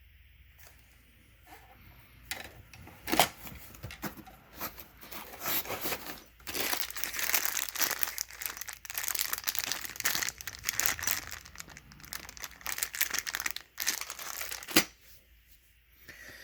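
Packing material from a 3D printer's box being handled, crinkling and rustling for most of the stretch, with a couple of sharp knocks, one about three seconds in and one near the end.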